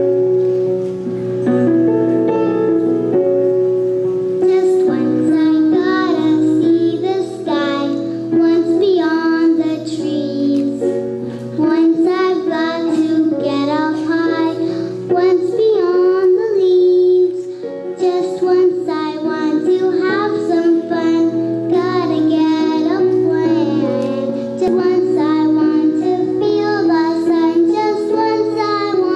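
A group of young children singing a song together over instrumental backing music. The backing plays alone at first, and the children's voices come in about four or five seconds in.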